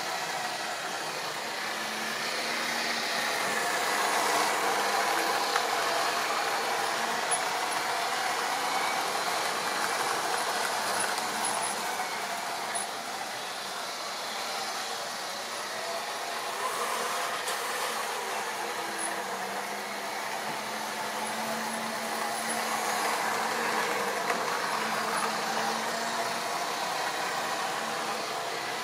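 OO gauge model train running on the layout's track: a steady whirr of the locomotive's small electric motor and the wheels on the rails, with a faint low hum that rises and falls a little.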